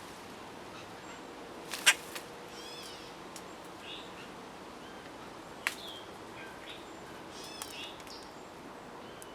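Small bird chirping in short bursts of quick, repeated notes, with two sharp clicks, the loudest sounds, about two seconds in and near the middle.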